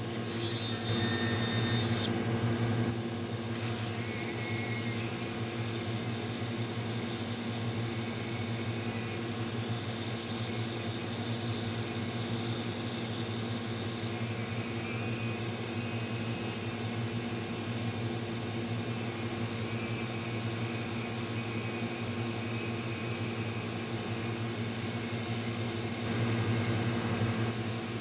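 Hot air rework station's blower running steadily with a low hum while heating an IC to desolder it from a laptop logic board. It gets louder briefly about a second in and again near the end.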